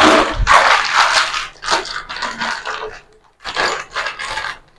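Clear plastic packet of 8 mm wall-plug fasteners crinkling and rustling as it is handled and opened, in several bursts with a short pause about three seconds in.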